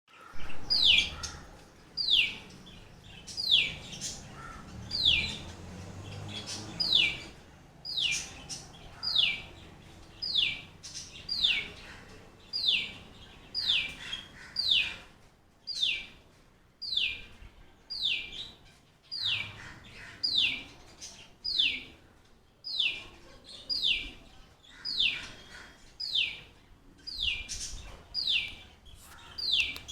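A sunbird calling: a sharp, clear note that falls quickly in pitch, repeated about once a second, sometimes in quick pairs.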